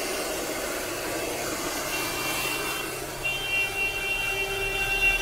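Handheld hair dryer blowing steadily on a client's hair. From about three seconds in, a high-pitched tone sounds over it, swelling and fading several times.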